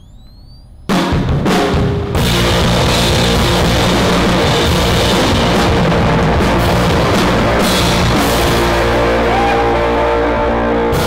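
Loud rock music with a drum kit, kicking in with a couple of hits about a second in and then playing steadily, after a brief faint rising whine.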